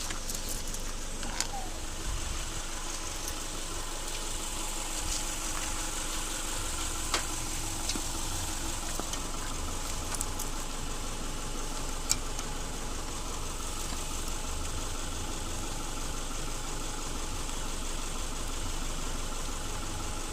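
Car engine idling steadily, with three short sharp clicks a few seconds apart.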